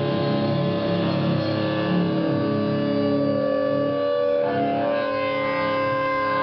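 Amplified electric guitars holding long sustained notes and chords, without drums, the held notes changing about four and a half seconds in.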